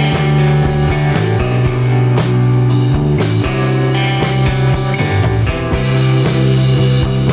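Instrumental background music with a steady beat over sustained bass notes.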